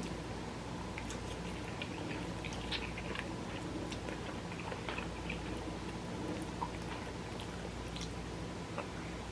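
A person eating noodles: scattered small chewing and mouth clicks over a steady low hum.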